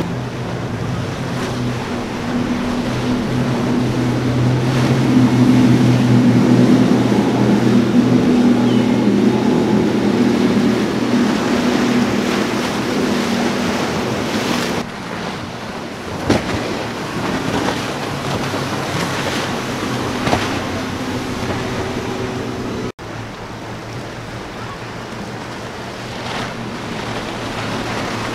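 Outboard-powered boats running hard through rough inlet water: a steady engine hum under the rush of wake and waves, with wind noise on the microphone. The sound changes abruptly about halfway through and again later with a momentary dropout, where the shots cut.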